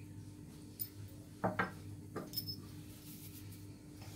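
Faint handling noises on a kitchen counter: a few light knocks and clicks, two close together about a second and a half in, over a steady low hum.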